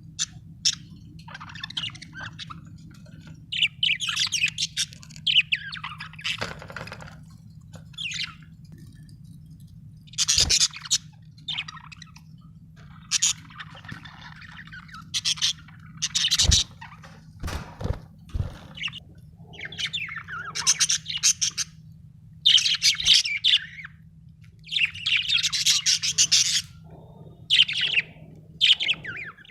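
Budgerigar singing: bouts of rapid, high chirping and warbling chatter that come and go every second or two. A few sharp knocks sound near the middle, over a steady low background hum.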